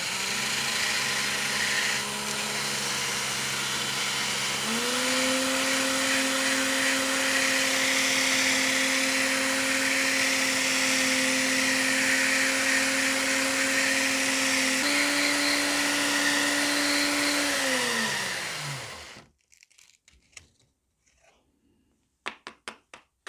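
Cordless drill spinning a wooden mast dowel against hand-held 80-grit sandpaper to taper it: a steady motor whine with sanding hiss. The motor speeds up about five seconds in and again near fifteen seconds, then winds down and stops a few seconds before the end, followed by a few light clicks.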